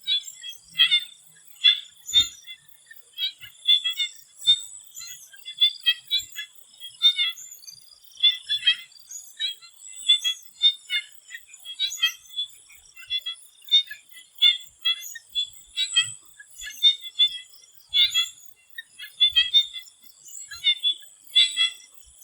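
A chorus of swamp frogs calling in short, sharp notes, several overlapping at irregular intervals, one to three a second. A steady high-pitched tone runs beneath the calls.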